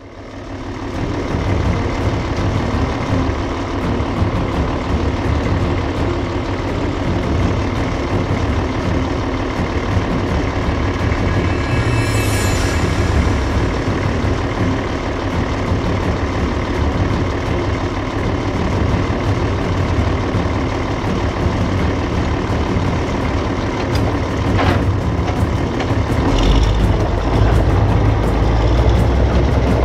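International TD6 crawler dozer's diesel engine running steadily. A brief high falling whine comes about 12 seconds in, and the low rumble grows louder from about 26 seconds in.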